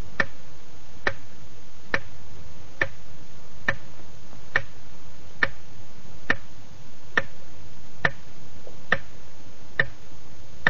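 Clock ticking slowly and evenly, a little more than one tick a second, over a steady hiss.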